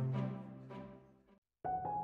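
Background music fades out about a second in, stops for a brief moment of silence, then a different piece of music starts near the end.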